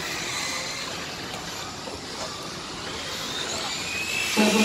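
Radio-controlled model trucks running on the circuit: steady outdoor noise with a faint high motor whine that rises and grows louder near the end.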